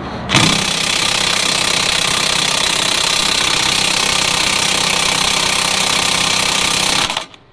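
DeWalt 20-volt XR cordless impact driver hammering a bolt down on a snow plow blade. It runs in one continuous burst of rapid impacts for about seven seconds, then stops.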